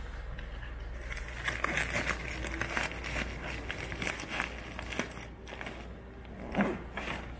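A fabric medical trauma bag and the wrapped supplies in its mesh pockets rustling and crinkling as they are handled and the flap is folded shut, with a few light knocks.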